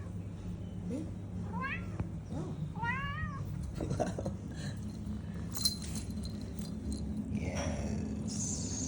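Domestic cat meowing, two clear rising-and-falling meows in the first few seconds, with fainter calls around them.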